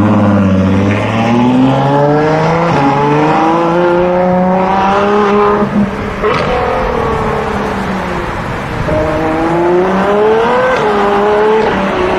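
Ferrari 812 Superfast (Mansory Stallone) 6.5-litre V12 accelerating away, its note climbing steadily in pitch. It breaks off briefly about halfway through, then climbs again near the end.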